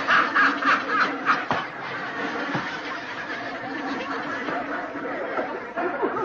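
A man laughing, a quick run of snickering pulses for the first second and a half that then carries on as lower, looser chuckling.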